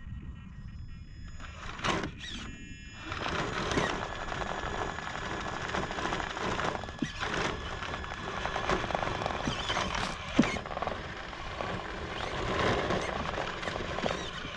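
Traxxas TRX-4 scale RC crawler climbing wooden stair steps: its electric motor and geared drivetrain whine steadily under load, with tires scrabbling on the timber and a few sharp knocks as the chassis and wheels bump over the step edges.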